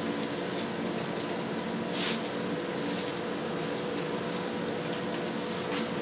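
Steady hiss with a faint hum, and a few soft, brief wet handling sounds from gloved hands kneading and shaping a ball of suluguni cheese curd. One of them is a little louder about two seconds in.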